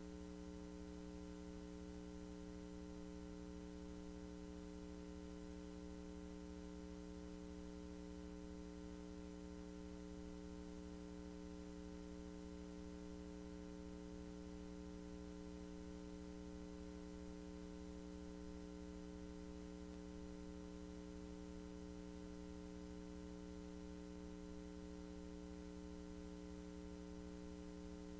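Steady, faint electrical hum with several even tones and no other sound.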